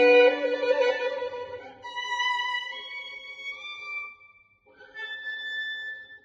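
Unaccompanied solo violin playing a slow jazz ballad: a double stop with vibrato, then higher held notes, a brief pause, and a final sustained high note that fades out near the end.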